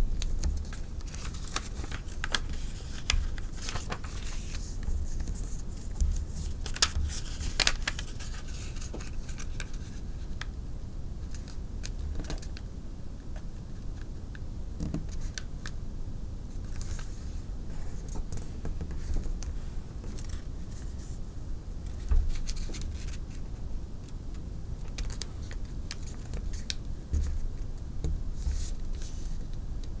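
A sheet of origami paper being folded and creased by hand: scattered crisp rustles and scrapes of paper, with soft thumps of the hands on the table.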